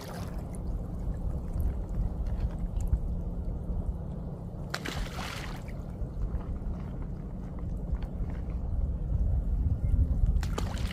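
Handfuls of rice-bran ground bait thrown out onto the water, landing with short splashes about five seconds in and again near the end, over a steady low rumble.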